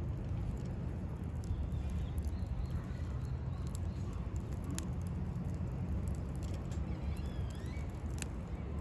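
Wood campfire crackling, with scattered sharp pops over a steady low rumble; a few faint bird chirps near the end.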